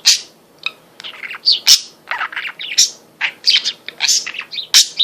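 Pet budgerigar warbling and chattering: a quick, irregular string of short chirps and squeaks.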